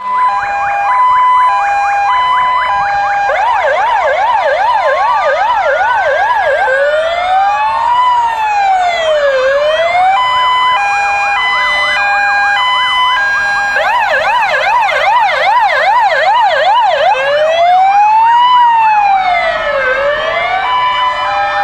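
Fire engine siren sounding loudly, cycling through its modes: an alternating two-note hi-lo, then a fast yelp, then a slow rising and falling wail, and back to the hi-lo. The cycle runs twice.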